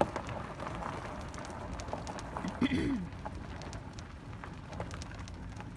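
Tyres rolling over a gravel road: a steady crunch made of many small clicks and pops.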